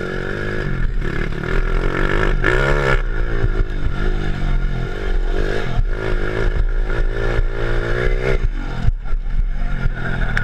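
Honda ATC 70 three-wheeler with a 140 cc four-stroke engine swap, revved hard under way. Its pitch climbs and drops several times as it is run up through the gears of its four-speed clutch gearbox.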